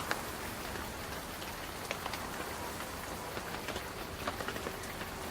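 Rain pattering steadily, with many scattered sharp drop ticks over an even hiss.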